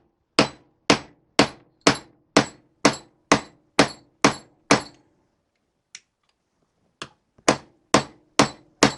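Hammer tapping a bearing-fitting tool to drive a Timken tapered roller bearing into a classic Mini rear hub: sharp metal-on-metal strikes with a short ring, about two a second. The strikes pause briefly about five seconds in, with a couple of light taps, then resume.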